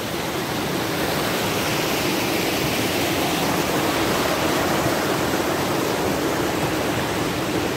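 Steady rushing noise of flowing water, even and unbroken.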